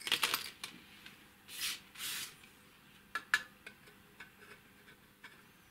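Metal parts of an altitude digitizer being handled as its base plate and mechanism are slid out of the cylindrical housing: a quick run of clicks at first, two short scraping swishes, then two sharp clicks and a few faint ticks.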